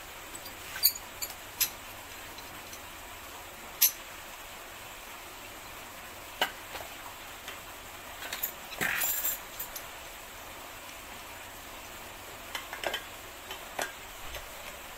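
Scuba regulator, hoses and fittings being handled and fitted to a tank: scattered sharp clicks and knocks, with a brief louder rush of sound about nine seconds in, over a steady background hiss.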